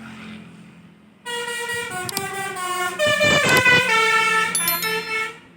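A tour bus's 'telolet basuri' multi-tone horn plays a quick tune of stepped notes. It starts about a second in and cuts off suddenly near the end.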